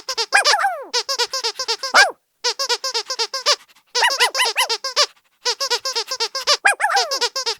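Squeaky dog toy squeaked over and over, several quick squeaks a second, in runs broken by short pauses, with now and then a longer squeak that falls in pitch.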